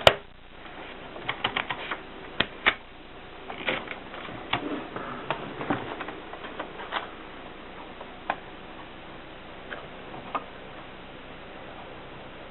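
Keys of a 1960s Mercedes typewriter being struck at an uneven pace, each strike a sharp clack. A loud strike opens, a quick run follows in the first few seconds, and the strikes thin out to a few isolated clacks near the end.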